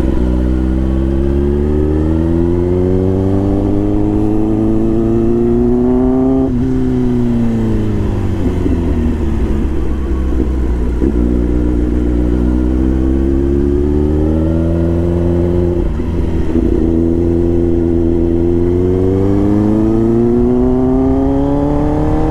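Kawasaki ZX-10R's inline-four engine heard from on the bike while riding. Its revs climb for about six seconds, drop suddenly and fall away, hold for a few seconds, dip briefly, then climb steadily again near the end.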